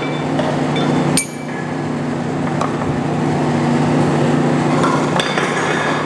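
Large American engine lathe's motor running with a steady hum while its drive has come out of gear, with metallic clinks of steel pieces handled on the headstock; one sharp ringing clink about a second in.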